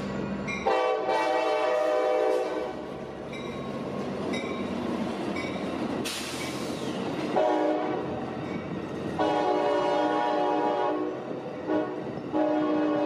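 Amtrak California passenger train passing at street level, its diesel locomotive sounding the horn in four blasts, the second one short, over the steady rumble of the passing cars. There is a brief hiss about six seconds in.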